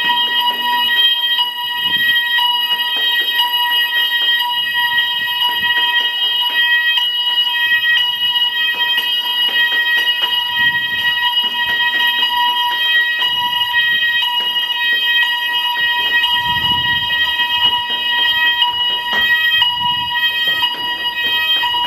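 Building fire alarm sounding continuously: a loud, steady, high-pitched tone with no breaks.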